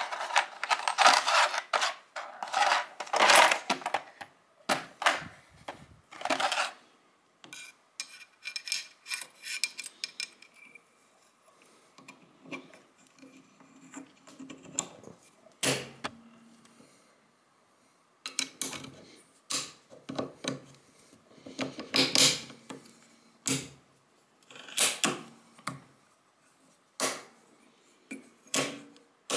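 Steel parts of a Stgw. 57 trigger housing clinking and scraping as a coil spring and the hammer are worked into the housing by hand. Rasping scrapes in the first few seconds, then irregular sharp metallic clicks with more scrapes about two-thirds of the way in.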